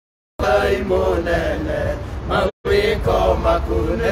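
Male voice singing in a chant-like style over a steady low backing. The sound cuts out to dead silence at the very start and again briefly about two and a half seconds in, as in a dropping live stream.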